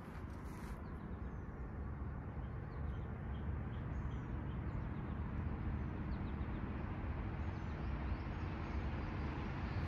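Distant rumble of an approaching freight train's diesel locomotives, growing slowly louder, with birds chirping now and then.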